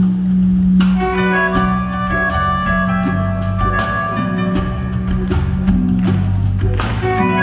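Live electronic tango music from a band with keyboards and guitar: a steady beat under held melodic notes and a bass line.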